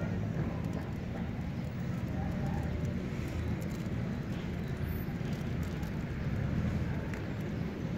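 Steady low rumble of outdoor urban background noise, with a few faint small ticks over it.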